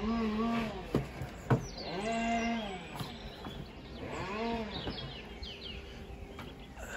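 An animal bleating three times, each a long wavering call, with birds chirping. A sharp knock falls between the first two calls.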